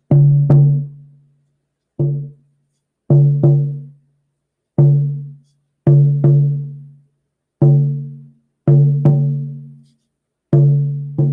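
Deer-hide hand drum on a birch bark frame, struck mostly in pairs of beats, a heartbeat-like pattern with about a second between pairs. Each beat rings with a low tone that fades over about a second.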